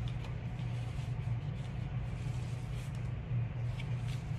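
Steady low hum, with a few faint rustles and taps of notebook pages being opened and turned.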